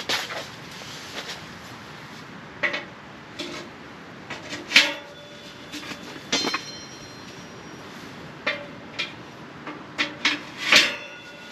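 Camp Chef Alpine XL sheet-steel wood stove and its stovepipe being handled and fitted together: irregular knocks and scrapes, loudest a little under five seconds in and near the end, with a couple of clanks that ring briefly with a metallic tone.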